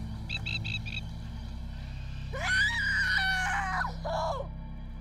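Dramatised soundtrack: a low drone under a rapid frog-like trill of about five pulses a second in the first second, then a high scream about two and a half seconds in, rising and held for over a second, and a shorter cry just before the end.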